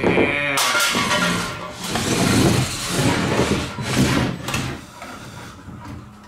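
A 3-pound beetleweight combat robot driving and skidding across a plywood tabletop: its drive motors whine, with a falling pitch in the first half second, and its body scrapes and rattles along the wood. The noise fades toward the end.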